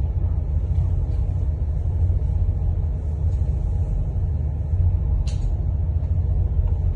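Steady low rumble of a boat's diesel engine running while lying alongside a ship, with one brief high-pitched click about five seconds in.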